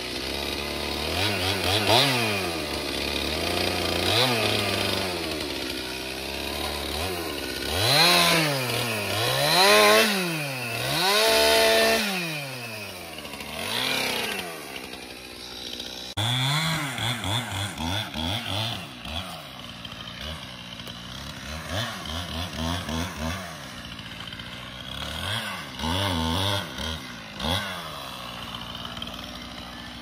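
Stihl two-stroke chainsaw running, its engine pitch repeatedly rising to full throttle and dropping back. In the second half the throttle is worked in quicker, shorter pulses.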